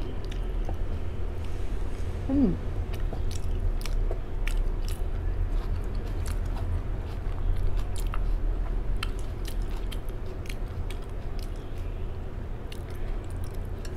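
Close-up chewing of a mouthful of crisp lettuce salad: many short wet crunches and mouth clicks, over a steady low hum.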